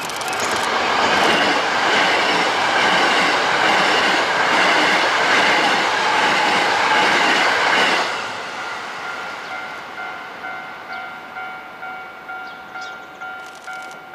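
Hankyu 1000 series electric train passing close by at speed, its wheels clattering over the rail joints, loud for the first eight seconds and then dropping away suddenly as the last car goes by. A bell rings steadily at about one and a half strokes a second, heard plainly once the train has passed.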